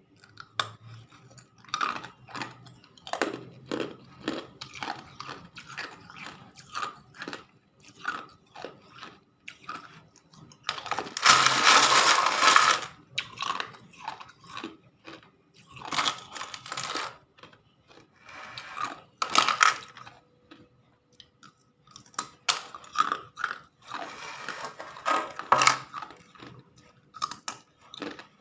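Hard ice being bitten and chewed close to the microphone: irregular sharp crunches and cracks, loudest in a dense burst of crunching about halfway through.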